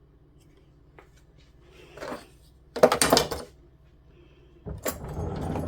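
Kitchen items clattering as they are handled: a small click about a second in, then two loud bursts of clatter, one just before the middle and another near the end.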